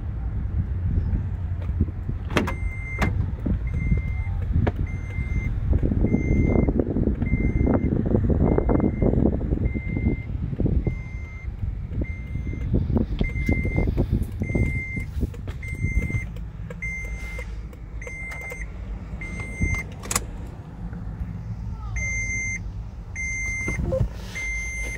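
A 2007 Toyota FJ Cruiser's warning chime beeping steadily, about three beeps every two seconds, starting about two seconds in. Wind buffets the microphone, loudest over the first half, and there are a couple of sharp clicks.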